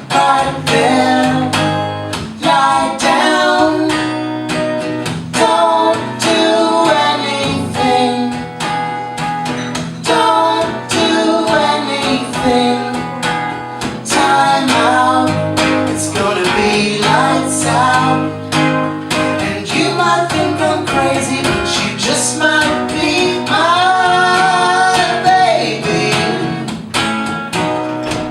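Live acoustic folk song: acoustic guitar strummed and picked steadily, with sung vocal lines over it, including a long held note near the end.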